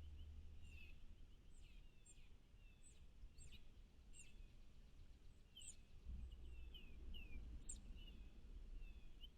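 Faint chirping of small songbirds: many short, high chirps, some sliding down in pitch, coming one or two a second, over a low background rumble.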